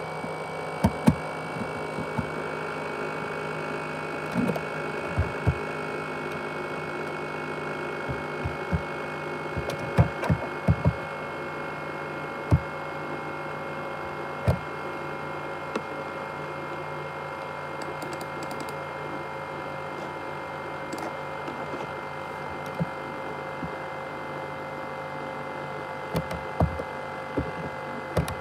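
ASUS X543UA laptop's cooling fan running with a steady whine of several tones, with irregular short clicks and knocks heard over it.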